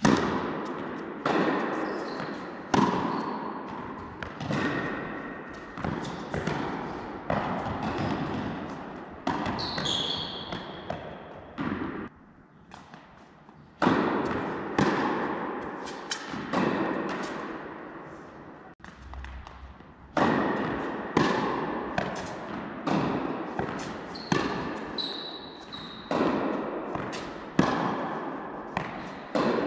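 Tennis ball struck by rackets and bouncing during rallies on an indoor court, each hit ringing out with a long echo through the large hall. The hits come about every second and a half, with a pause about twelve seconds in and a short break near nineteen seconds before play resumes.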